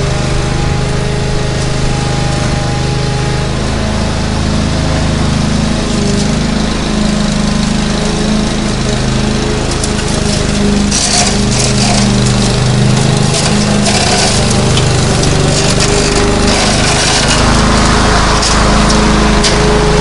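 Lawn mower engine running steadily under load, with short bursts of crackling clicks in the middle stretch.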